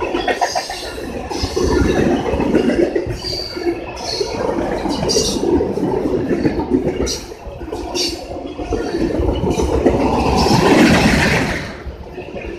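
Freight train rolling past, its wheels clattering and clicking over the rails. It grows louder and hissier for a moment about ten seconds in.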